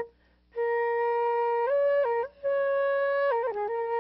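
A flute playing a slow melody of long held notes, with short pauses for breath about half a second in and around halfway, and a quick ornamented turn of notes near the end.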